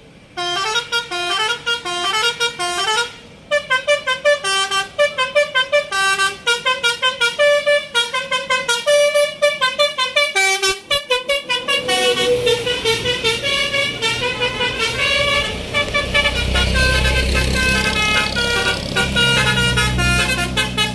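A bus's Basuri 'telolet' multi-tone musical horn playing a quick run of tunes, its notes changing several times a second. About twelve seconds in, the bus's engine rumble comes up underneath and grows louder while the horn keeps sounding.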